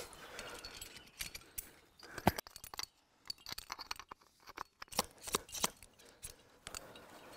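Faint, scattered clicks and scrapes of climbing hardware: a metal nut being worked into a rock crack, with gear clinking and hands scraping on the rock. The sharpest clicks come about two seconds in and again around five seconds in.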